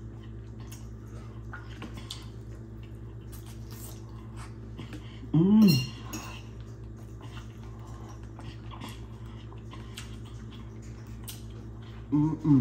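Fork clicking and scraping against a plate of food in faint scattered ticks, over a steady low hum. A short vocal sound that rises and falls in pitch comes about five and a half seconds in, and another comes near the end.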